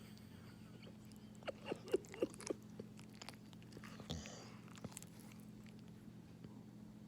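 A sleeping dog making mouth noises: a quick run of wet lip-smacking clicks about one and a half to two and a half seconds in, then a short breath or sniff about four seconds in.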